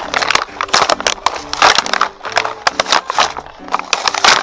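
Clear plastic blister packaging of a toy kitchen set crinkling and crackling as it is handled and peeled off its cardboard backing, many quick irregular crackles.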